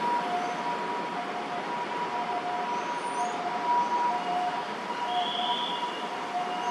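Steady outdoor city-park background: an even hum of distant traffic, with a steady high tone and a lower note repeating about twice a second. A short chirp, likely a bird, comes about five seconds in.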